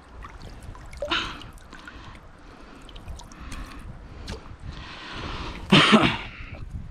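Shallow river water splashing and sloshing as a trout is held and handled by hand in the water, with small clicks and splashes and a louder burst just before the end.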